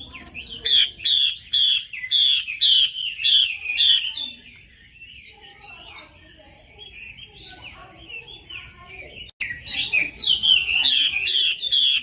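Female Chinese hwamei singing loud, clear song: a run of about eight strident repeated notes, then softer, varied warbling, then another loud run of repeated notes starting near the end.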